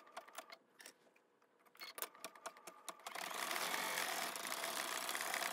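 Brother embroidery machine starting to stitch out a design. A few light clicks come first, then about three seconds in the needle's steady, rapid stitching begins.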